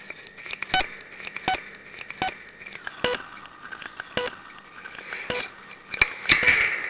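Homemade spring-and-oscillator noise synthesizer producing a steady electronic tone with pitched blips repeating about every three-quarters of a second, the tone shifting lower around the middle as a knob is turned. Near the end louder crackling, scraping bursts come in as the springs are touched.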